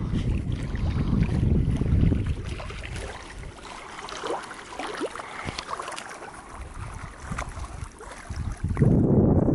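Wind buffeting the microphone in gusts over small waves on a lake, with scattered light clicks and ticks from the water during a calmer lull in the middle.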